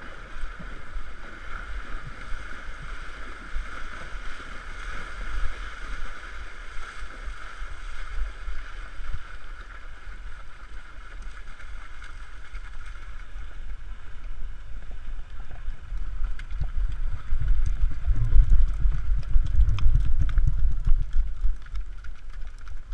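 Icelandic horse wading a shallow river, its legs splashing steadily through the water, with wind on the microphone. After about two-thirds, the splashing gives way to hoof thuds and heavier wind buffeting, loudest near the end, as the horse comes out onto sand.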